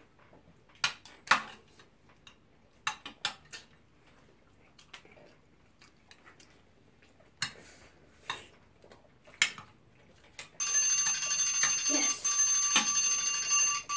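Phone countdown-timer alarm going off as the timer reaches zero: a loud, steady electronic ringing of several high tones that comes in during the last few seconds. Before it, scattered clicks of eating utensils against a glass serving dish.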